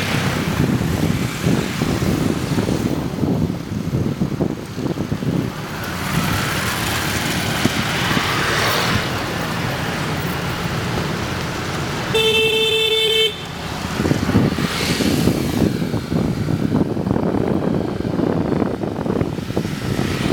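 Road traffic passing, with one vehicle horn sounding for about a second roughly two thirds of the way in.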